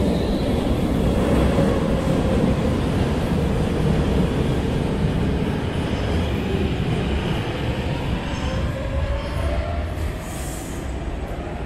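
Brussels Metro train rumbling along the platform as it brakes, with an electric whine that falls in pitch over the first few seconds. About eight seconds in, a whine rises in pitch and the rumble eases.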